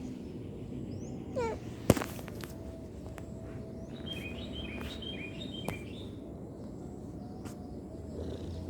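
Steady background noise with a short falling call, a sharp knock just under two seconds in, then a run of short, high bird chirps a little later.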